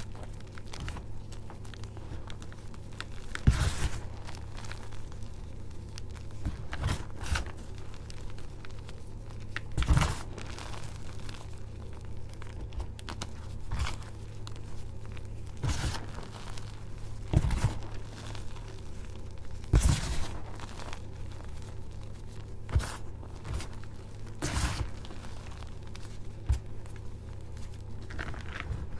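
Hands squeezing and crumbling soft, powdery crushed gym chalk mixed with starch and holi powder. It makes a continuous soft crumbling, broken every few seconds by a louder crunch as a lump gives way.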